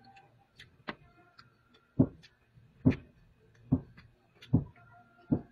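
Hammering from house construction next door: heavy blows at a steady pace, a little more than one a second, starting about two seconds in.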